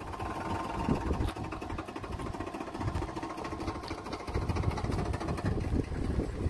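Engine of a 2005 Ford F-150 pickup running as the truck pulls slowly forward.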